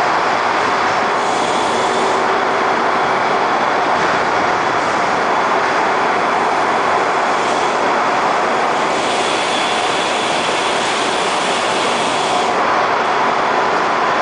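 Meatball production-line machinery running steadily: a spiral cooling conveyor with its motors and wire-mesh belts makes a loud, even mechanical noise with a faint high whine.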